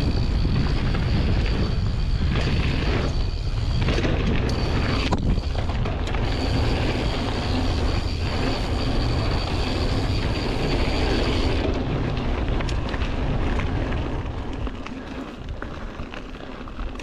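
Wind buffeting the microphone of an action camera on a mountain bike descending a gravel trail, with tyre noise over the gravel. It is a steady loud rumble that eases a little near the end.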